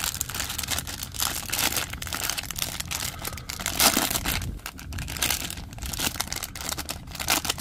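A Hot Wheels Mystery Models foil blind bag torn open by hand: continuous crinkling and crackling of the plastic foil, with a few louder rips and crunches along the way.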